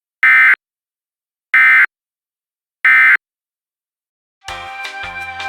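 Three short bursts of Emergency Alert System digital data (the SAME end-of-message code), a harsh buzzy warble repeated three times about a second apart. Music starts near the end.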